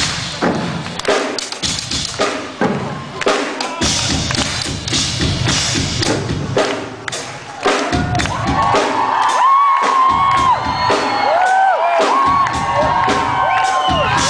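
Drum kit played live in loud, irregular hits over a cheering concert crowd. From about eight seconds in, the crowd's high screams and whoops swell and dominate while the drums go on underneath.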